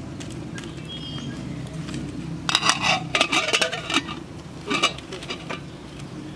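A small aluminium pot and its lid clattering and clinking as the pot is set down and the lid fitted on. There is a quick run of metal knocks about halfway through and a couple more clinks shortly after.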